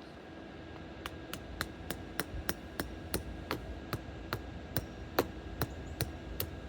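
A hammer driving a stake into the ground, striking in a steady rhythm of about three blows a second, starting about a second in.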